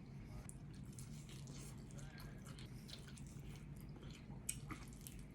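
Close-up eating sounds of someone chewing chicken leg and rice: faint wet mouth smacks and small clicks, with a sharper click about four and a half seconds in. A low steady hum runs underneath.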